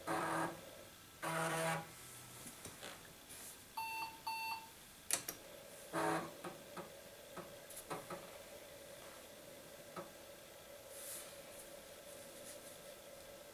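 IBM 5140 PC Convertible rebooting from its 3.5-inch floppy drive. The drive gives short buzzy bursts as the head steps, twice in the first two seconds and again about six seconds in. Two short electronic beeps come about four seconds in, followed by a steady drive-motor whine with scattered clicks.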